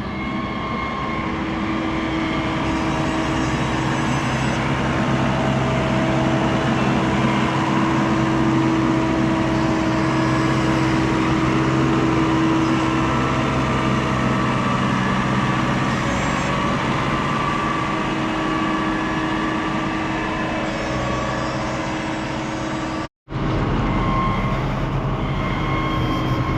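Heavy harvest machinery running steadily at work, with a constant engine drone and a steady hum. It drops out for an instant near the end, then carries on.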